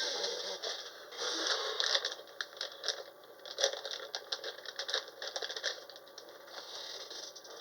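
Close handling noise of a collectible rock being opened: irregular crackling and scraping with many small clicks, and a few louder bursts.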